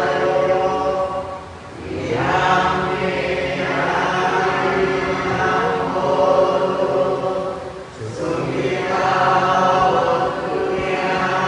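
Buddhist chanting: a group of voices recites verses in unison on a sustained, sung tone, with two short breaks between phrases, about 2 and 8 seconds in.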